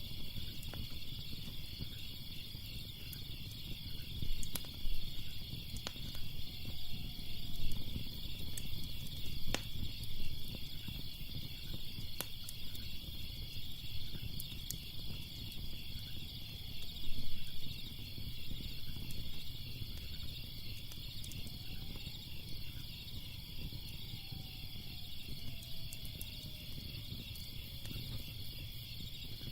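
Wood fire crackling with scattered sharp pops over a low rumble, set against steady chirping crickets.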